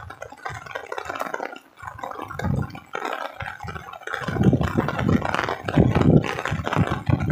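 Heavy rain falling, heard on a handheld phone's microphone while walking, with irregular low rumbling bursts on the microphone that grow stronger about halfway through.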